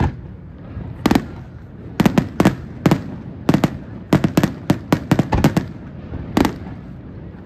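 Fireworks display: aerial shells bursting overhead in a loud, uneven string of sharp bangs, about fifteen in all, coming thickest from about four to five and a half seconds in, over a steady low rumble.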